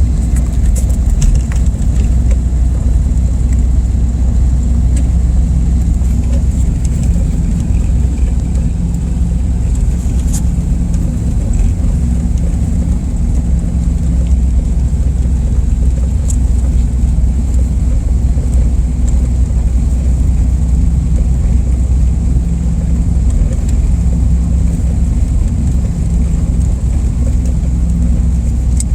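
Car driving on a slushy winter road: a steady, heavy low rumble of engine and tyres, with a few faint ticks.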